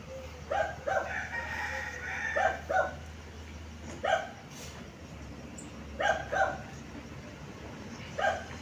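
A dog barking in short pairs about every two seconds, with a rooster crowing once about a second in, over a low steady hum.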